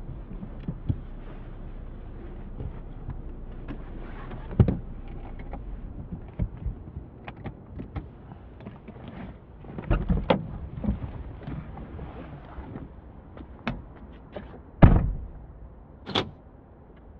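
A car door being opened and shut as someone gets out of a parked car. Small clicks and rustles come first, then a cluster of knocks about ten seconds in as the door opens. Near the end the door slams shut, the loudest sound, followed a second later by a short sharp click-like sound.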